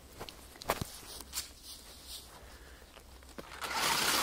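A few soft knocks and rustles of a phone being handled, then a louder steady hiss that starts near the end.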